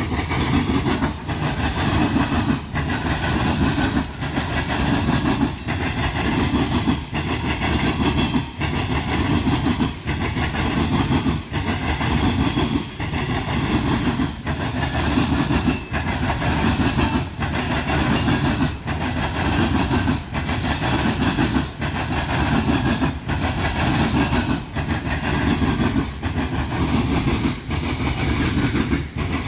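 Loaded coal hopper cars of a freight train rolling over a railroad crossing diamond. The wheels clatter in a steady rhythm, about one clack group a second, over continuous rumble and rail noise.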